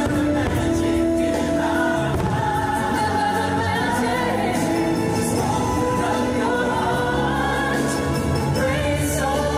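Fireworks show soundtrack: music with a choir singing, held notes under a sung melody.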